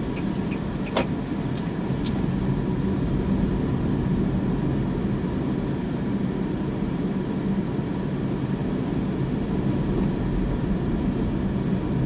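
Steady low rumble of a car's engine and tyres heard from inside the cabin while driving, with a single sharp click about a second in.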